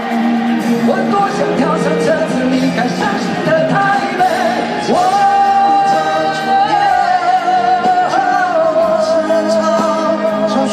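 Live rock band music in a large arena: male singing over acoustic and electric guitar, with a long high note held from about five seconds in until about eight and a half seconds.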